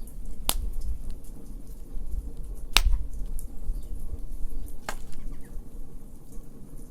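Wood fire burning in a fire pit: a low steady rumble of flames with small crackles, and three sharp loud pops spread across a few seconds.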